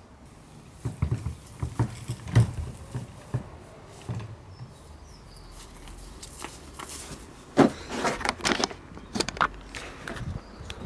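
Irregular light footsteps on grass and handling knocks, a scattered run early on and louder thuds and rustles about eight to nine and a half seconds in.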